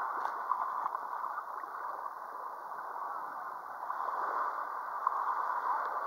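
Steady open-air beach background noise, an even hiss with a few faint ticks.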